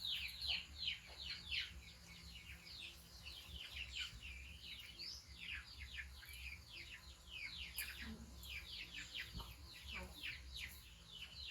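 Birds chirping busily: a dense stream of short, high chirps, each falling in pitch, several a second, over a faint low hum.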